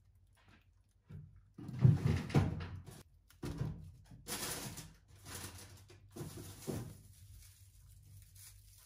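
Groceries being unpacked onto a kitchen counter: plastic bags rustling and items set down with soft thumps, in several separate bursts.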